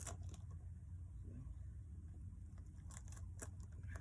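Scattered light crunches and scrapes of QPR cold-patch asphalt being worked into a pothole, with a few sharper ones about three seconds in, over a steady low rumble.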